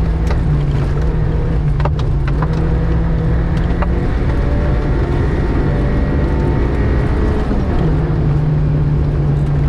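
VAZ 2105 rally car's inline-four engine running hard on a gravel stage. Its note drops about four seconds in and picks up again near the end, over steady road noise and a few sharp clicks of gravel hitting the car.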